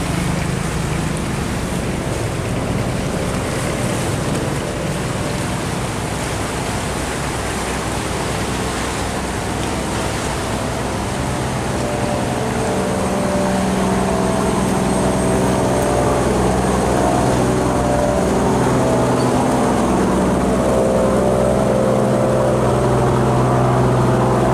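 Diesel engines of steel cargo barges running hard against the current through a sluice gate, over loud churning, rushing water. The engine hum grows stronger about halfway through as a barge's engine room passes close by.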